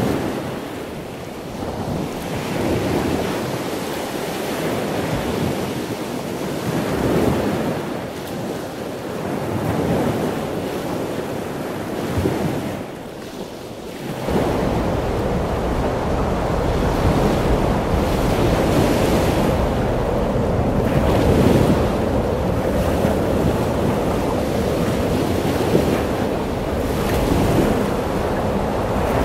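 Ocean surf washing and breaking, with wind on the microphone. About halfway through, a heavier wind rumble comes in.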